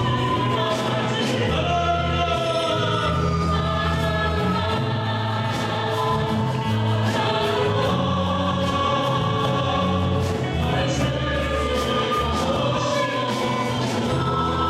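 Live Christian praise song: a lead singer and group voices sing over instrumental backing, with Korean barrel drums (buk) beaten with sticks.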